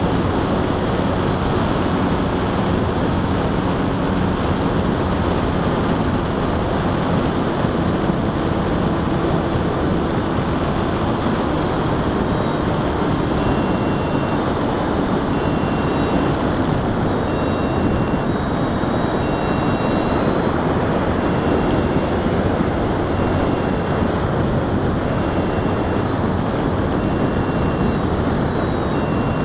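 FPV model aircraft in flight, heard as a steady rush of wind and motor noise. From about halfway through, a short high electronic beep repeats about every two seconds.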